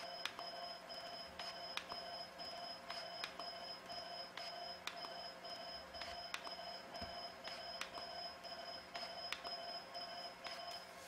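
Jeisys ULGEN HIFU (focused ultrasound) device beeping in a rapid, even train of short high tones while it fires its shots, with sharp clicks every half second to a second or so. The beeping stops at the very end.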